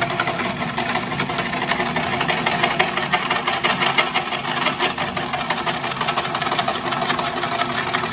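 Horizontal post-boring machine drilling lengthwise through a wooden post. It runs steadily with a dense, rapid rattle throughout.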